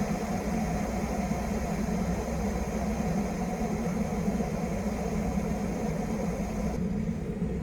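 Russell Hobbs 3000-watt electric kettle heating water close to the boil: a steady low rumble with a hiss over it. The higher hiss drops away about seven seconds in.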